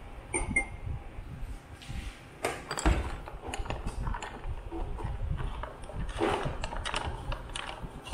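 A spoon or stirrer stirring an iced coffee in a tall drinking glass, with ice and the stirrer clinking irregularly against the glass. One clink about half a second in rings briefly.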